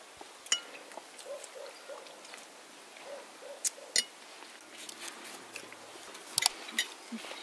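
Scattered light clinks and taps of cutlery and plates during a meal, a few sharp ones about half a second, four seconds and six and a half seconds in.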